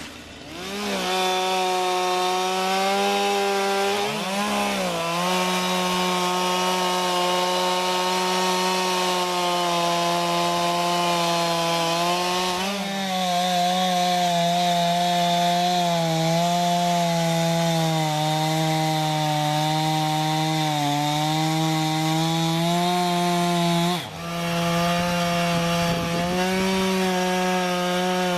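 Stihl MS 251 C-BE two-stroke chainsaw running at high revs and cutting wood. The engine pitch sags and recovers several times as the chain bites, and about 24 seconds in the engine briefly drops off before coming back up.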